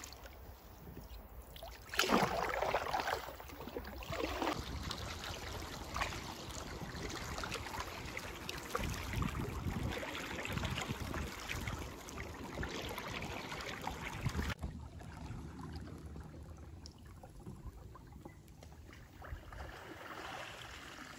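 Water splashing and rushing along the side of a moving Grabner Explorer inflatable kayak, loudest about two seconds in and quieter in the last few seconds.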